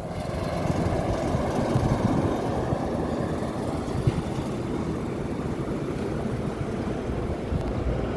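Heavy truck engine and tyre noise on a highway: a container tractor-trailer passing, a steady low rumble and road hiss.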